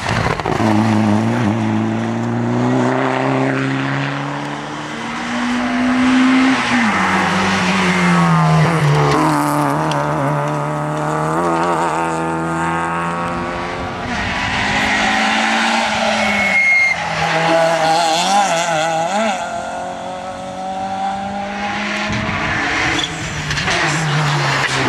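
Rally car engines revving hard at full throttle as several cars race past in turn. The pitch climbs through each gear and drops back at every shift.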